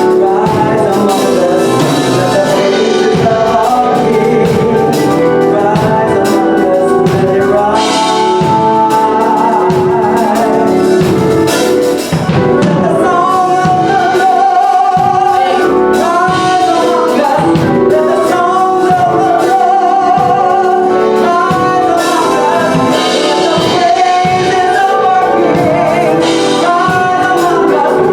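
Gospel music: a church music ministry singing with instruments and drums.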